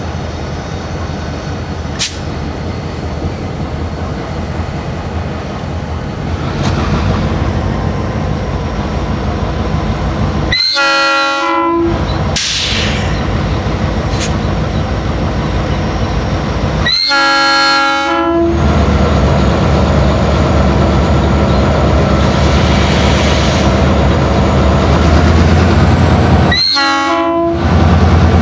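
EMD 645 diesel engines of a Bessemer & Lake Erie SD38AC-led locomotive consist pulling a taconite train under load, the rumble growing louder as the train approaches and works harder. The multi-note locomotive horn sounds three times: two long blasts, about a third of the way in and just past halfway, then a shorter one near the end. This is the opening of the grade-crossing signal.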